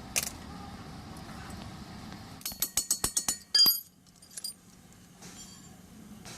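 Metal tools and parts clinking in a car workshop: a quick run of sharp clicks, then one loud ringing metallic clink, over a low steady background hum.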